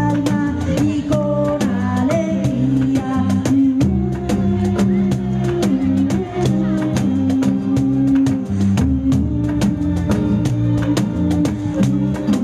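Live ethnic folk music: a steady beat of percussion strokes, several a second, over low held notes that shift in pitch, with a higher melody in the first few seconds.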